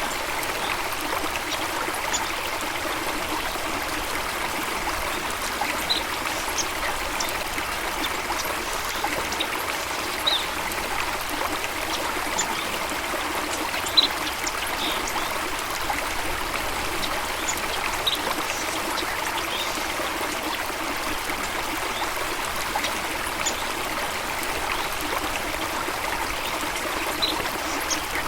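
Stream water running and trickling steadily, with scattered short high-pitched sounds over it.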